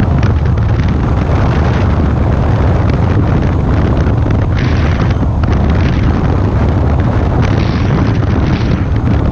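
Wind rushing over a GoPro microphone on a moving motorcycle, loud and steady, with the motorcycle's engine running underneath.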